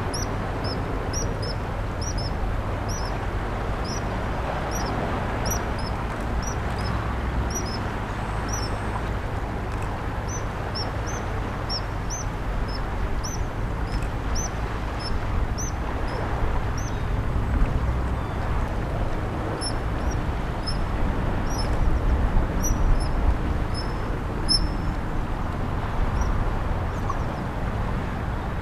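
Young otters calling with short, high-pitched squeaks, about two a second, in runs that stop near the end, over the steady rush of a flooded river.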